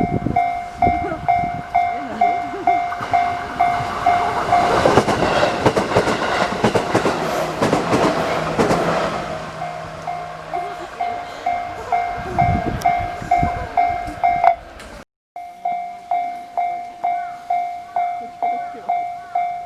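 Japanese railway level-crossing warning bell dinging steadily about twice a second, while a train passing over the crossing swells up and fades away between about four and eleven seconds in. The bell cuts out for a moment about fifteen seconds in, then carries on.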